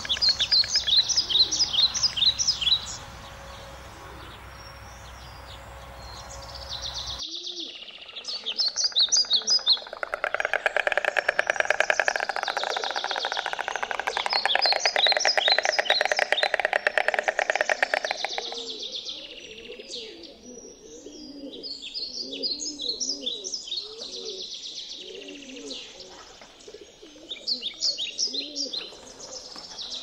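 Small songbirds chirping and trilling in quick high bursts. A dense buzzing sound fills the middle stretch, and a lower call repeats many times in the later part.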